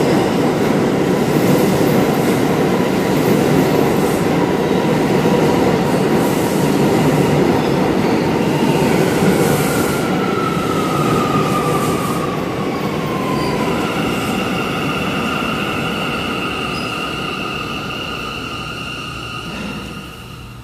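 New York City subway train running past the platform: a steady rumble of wheels on rail that gradually fades as it pulls away. About nine seconds in a high squeal comes in, sliding down in pitch, then holds steady as a high ringing squeal until near the end.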